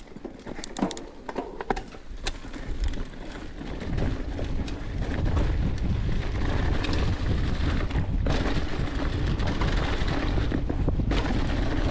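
Mountain bike rolling fast down a leaf-covered dirt trail: sharp clicks and rattles from the bike over the first few seconds, then from about four seconds in a steady, louder rush of wind noise on the microphone over the tyre noise.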